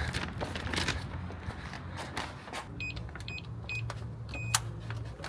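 Four short, high electronic beeps about half a second apart in the second half, the last one with a sharp click, over a low steady hum.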